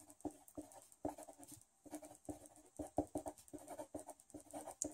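A pen writing on paper: faint, short scratching strokes in an uneven run as a line of handwriting is written.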